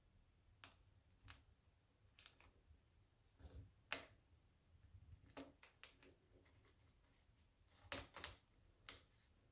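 A knife sawing through a sugar-dusted stollen on a wooden cutting board: faint, scattered crackles and clicks from the crust, a little louder about four seconds in and again near the end.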